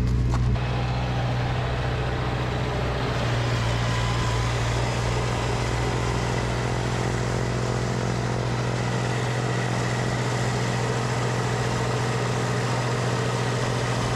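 Tractor engine running steadily as it works a snowblower, a constant low hum that eases slightly about half a second in.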